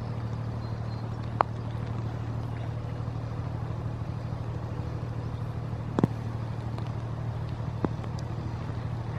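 Inland cargo ship's diesel engine running at a steady low hum, with a few sharp single knocks, the loudest about six seconds in.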